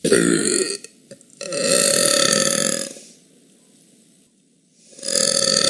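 A woman burping three times: a short burp at the start, a long drawn-out burp of about a second and a half, and a third long burp beginning near the end.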